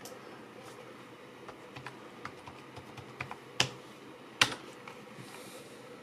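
Computer keyboard keys tapped a few at a time, with two sharper clicks a little past halfway: a password being typed in at the Windows lock screen.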